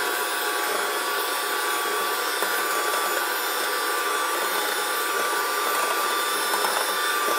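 Electric hand mixer running at a steady speed, its motor giving a constant whine as the twin beaters whisk cream cheese into a runny egg, sugar and oil batter.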